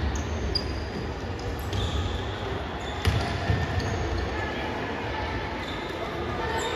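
A basketball being bounced on a court floor during a youth game, with low thuds near the start and about three seconds in. Short high squeaks, typical of sneakers on the floor, come over a steady background of play.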